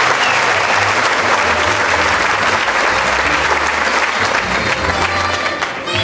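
Audience applause, a dense steady clapping from a large crowd.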